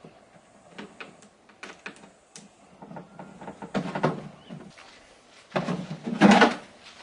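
Small clicks, knocks and rubbing as hands fasten a fan onto a plastic cooler lid, with a louder scraping, handling noise about six seconds in.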